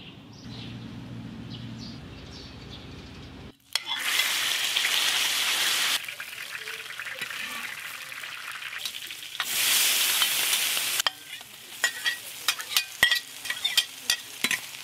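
Food stir-frying in a wok. After a few seconds of low, steady hum, there are two loud spells of sizzling as ingredients go into the hot oil, then about the last four seconds are the spatula clacking and scraping against the pan while the food is stirred.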